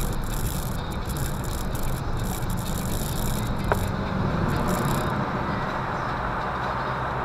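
Car road noise heard from inside the cabin: a steady engine hum under tyre rumble. There is a single sharp click about three and a half seconds in. The tyre noise grows louder from about four seconds in, as the car drives into a road tunnel.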